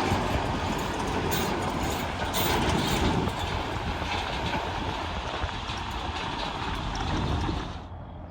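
Steady rumbling vehicle noise with scattered short clatters, cutting off abruptly near the end.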